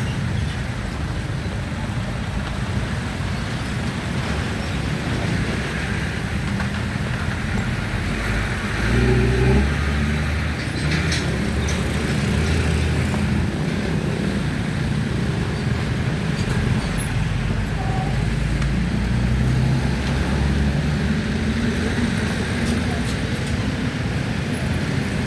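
Steady road traffic passing, with motor engines rising and fading as vehicles go by; the loudest vehicle goes past about nine seconds in.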